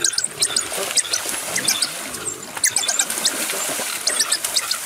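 Many short, high-pitched chirps and squeaks, the twittering of African wild dogs, over the splashing of animals moving through shallow water.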